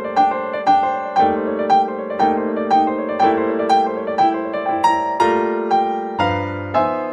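Background piano music: a gentle melody with notes struck about twice a second over held lower chords.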